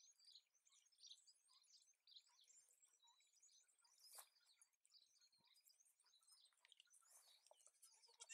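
Faint birdsong: many quick, high chirps and trills from small birds, with one sharp click about four seconds in.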